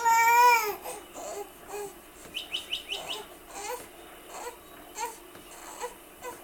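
A baby lets out a loud, drawn-out squeal, then the pet birds chirp: a quick run of five rising chirps about two and a half seconds in, followed by scattered short calls.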